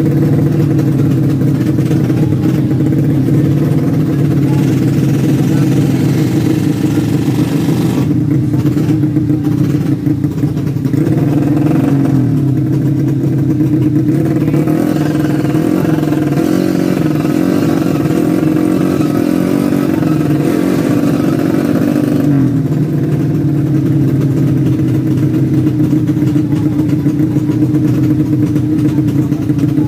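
Loud, steady running of a tuned 130cc four-stroke drag bike engine held at high revs, its pitch wavering a little partway through.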